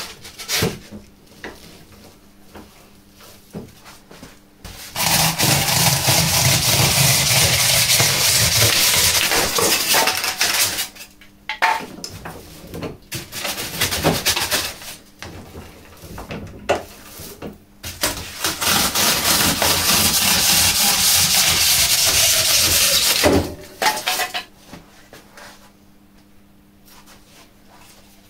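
Hand-cranked homemade chainsaw, its gears driving the saw chain, cutting into a block: two long runs of steady rattling chain noise of about five seconds each, with shorter bursts and knocks between them. Near the end of the second run the chain's whir falls in pitch as it winds down.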